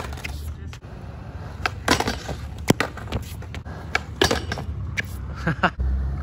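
Skateboard on a concrete skatepark: wheels rolling with a steady low rumble, broken by several sharp clacks of the board striking the concrete. The rumble grows louder near the end.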